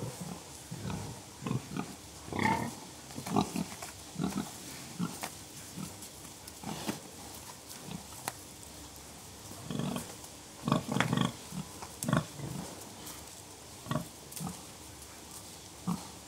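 Pigs grunting: short, low grunts at irregular intervals, a few seconds apart at times, with a quicker run of grunts about ten seconds in.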